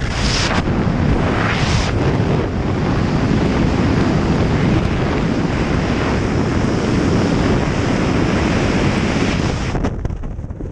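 Loud rushing wind over the jumper's camera microphone during BASE-jump freefall. The rush cuts off abruptly near the end.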